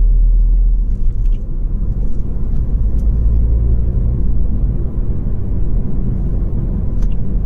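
Steady low rumble of road and engine noise inside the cabin of a moving Volvo V40 T3 2.0, with a few faint clicks.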